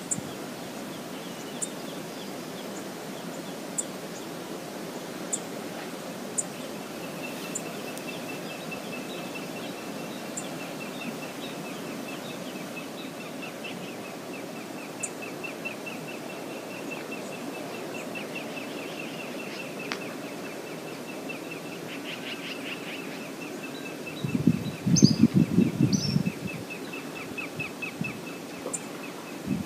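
Steady rush of the river at Brooks Falls. From several seconds in, a rapid high trill runs over it. A brief, loud low rumble comes about 25 seconds in.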